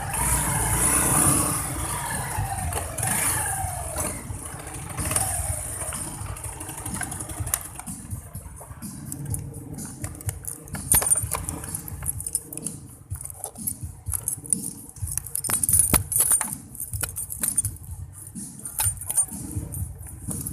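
Inside a moving vehicle: a low engine and road rumble with falling pitch sweeps in the first few seconds, then many sharp clicks and rattles from the second half on.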